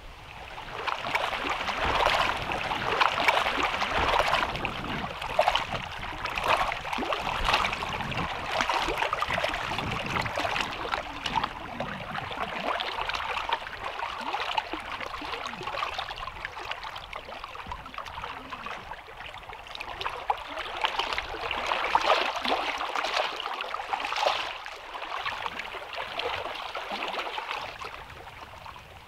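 Small wind-driven waves lapping and splashing on a lake, a continuous wash of many small splashes. It swells early on and again about two-thirds through, then fades near the end.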